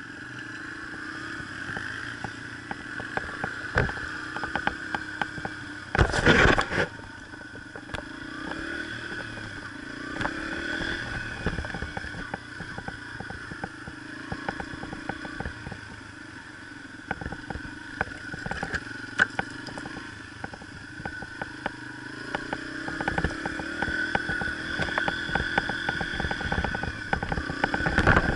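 Yamaha TT-R125 dirt bike's small single-cylinder four-stroke engine running under way, its pitch rising and falling with the throttle, getting louder near the end. Rattles and knocks come from the bike over the rough trail, with a loud thump about six seconds in.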